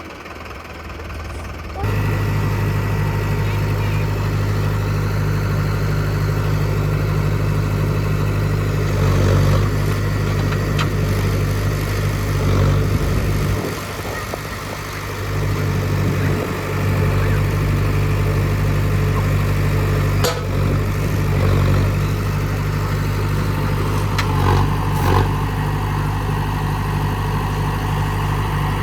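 Mahindra tractor's diesel engine running with a steady low drone, easing off for a couple of seconds around the middle, with a few sharp knocks later on.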